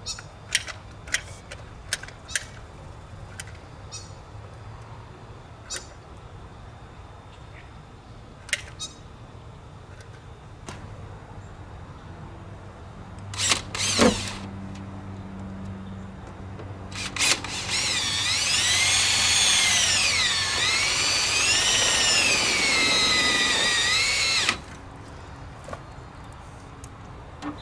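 Power drill running for about seven seconds, its whine rising and falling in pitch as the speed changes, then stopping abruptly. Before it come scattered light clicks and a couple of louder knocks.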